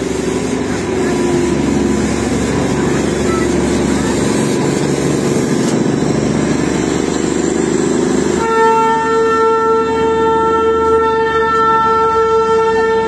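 Darjeeling Himalayan Railway narrow-gauge diesel locomotive and its coaches rolling past, the engine running with a heavy rumble. About eight and a half seconds in, the train's horn sounds one long steady blast that is still going at the end.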